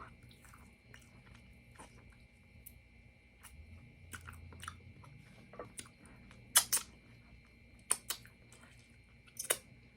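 Close-miked eating: chewing with wet mouth clicks and smacks, with several sharper, louder clicks in the second half.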